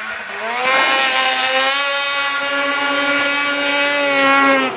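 Small vehicle engine revving up over about a second, then holding steady at high revs before it stops abruptly near the end.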